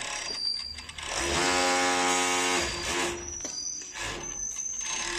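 ROSEW GC647KD four-thread overlock sewing machine running at high speed while stitching the edge of a T-shirt panel: a steady high-speed whir. It starts about a second in and runs for about a second and a half, then comes in shorter stop-start bursts.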